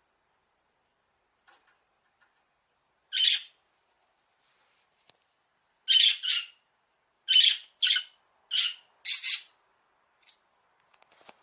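Budgerigar giving short, harsh squawking calls: one about three seconds in, then a quick run of six.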